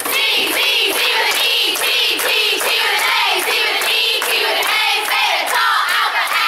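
A group of young women singing a sorority door chant together at a high pitch, clapping in a steady rhythm. It starts abruptly as the doors open.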